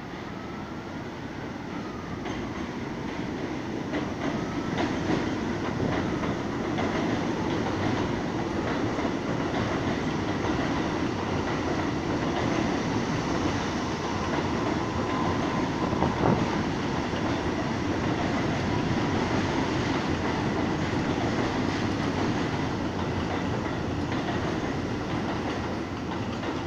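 New York City subway train running past on the elevated steel structure: a rumble that builds over the first several seconds, with the wheels clattering over rail joints, then eases a little near the end.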